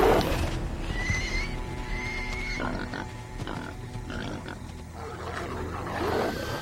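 Animal cries over a documentary music score, loudest in the first half second, then wavering high calls over the music.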